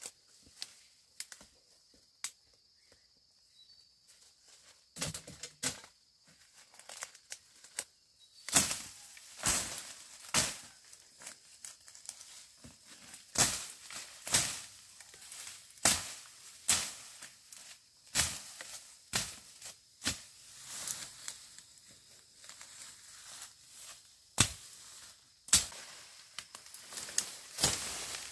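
A run of sharp strikes or knocks, irregular but roughly one a second, starting about a third of the way in, with rustling between them. A faint steady high tone is heard before the strikes begin.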